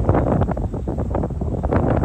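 Wind buffeting the microphone in irregular gusts, the loudest thing heard, over the distant engine of a tracked excavator digging.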